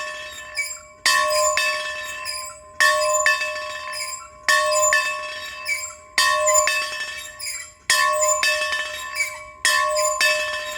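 A bell rung over and over: a loud strike about every second and a half or so, each followed by a few lighter strikes, ringing on and fading between them.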